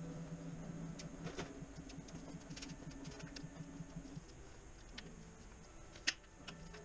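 Faint clicks and clinks of hand tools and metal parts as the oil filter is worked loose under the car, over a steady low hum that drops out about four seconds in. One sharper click about six seconds in.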